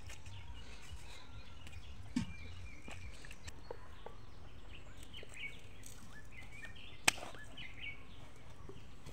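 Outdoor ambience of small birds chirping faintly over a low steady rumble, with a knock about two seconds in and one sharp crack about seven seconds in from sticks of firewood being pushed under a pot on an open wood fire.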